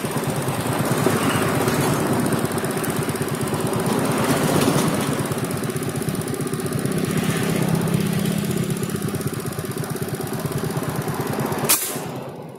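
Small engine running steadily with a fast, even pulse, and a single sharp click near the end.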